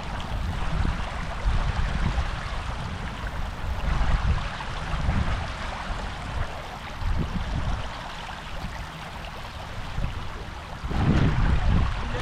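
River water rushing steadily, with wind buffeting the microphone in gusts, strongest near the end.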